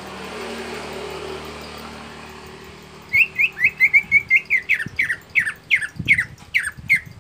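Greater green leafbird (cucak ijo) calling: about three seconds in, a quick run of short chirps that slows into a string of sharp downward-sweeping notes, about three a second. Before it, only a low background rumble.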